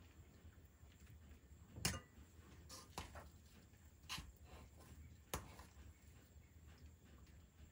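Metal spoon and fork clinking and scraping against a copper saucepan while scooping mashed potato: a handful of faint, sharp clicks spread out, the sharpest about two seconds in.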